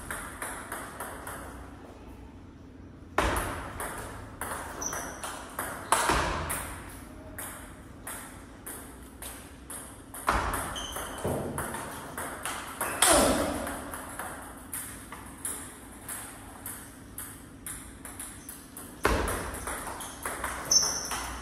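Table tennis rally: a plastic ball clicking back and forth off rubber bats and the table top in quick, even strokes. A few much louder hits stand out, spaced a few seconds apart.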